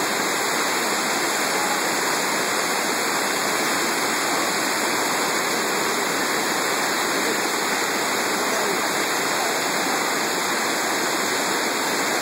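Whitewater rapids of a gorge river rushing, a steady, unbroken rush of water.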